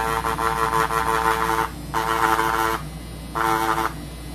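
Rotary tattoo pen motor running off a wireless battery pack: a steady, high buzz that starts and stops three times, first for about two seconds, then about a second, then half a second.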